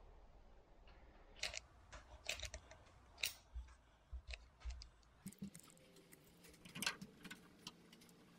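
Faint, scattered clicks and taps of handling as adhesive is squeezed from a small tube onto the back of a small emblem, which is then set against the truck's plastic grille.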